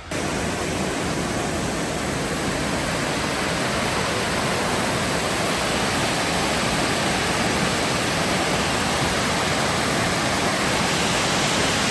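Steady rushing noise of falling water from a waterfall, starting abruptly and growing slightly louder toward the end.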